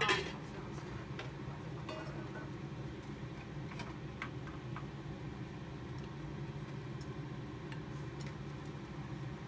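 Kitchen utensils or cookware: a clatter right at the start, then a few faint light clicks and taps over a steady low hum.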